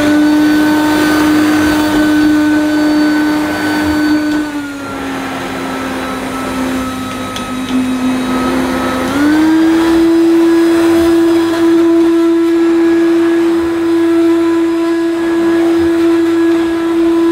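Hoover Turbopower 2 Autosense upright vacuum cleaner running as it is pushed over carpet, its motor giving a steady whine. About four seconds in the whine drops slightly lower and quieter. About nine seconds in it steps up to a higher, louder pitch and holds there.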